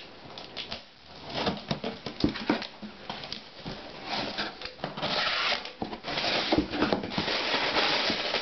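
Cardboard shipping box being opened: packing tape slit along the seam with a small cutter, then the flaps pulled open, a run of scrapes, taps and crinkles. About halfway through the handling turns into denser, steadier cardboard rustling.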